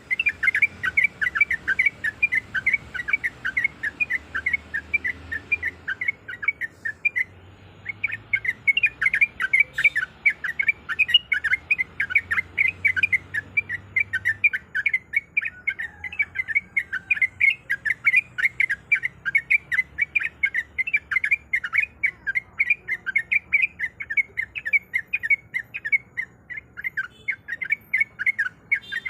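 Yellow-vented bulbul (trucuk) singing a fast, continuous string of short, liquid chattering notes, several a second, with a brief pause about seven seconds in.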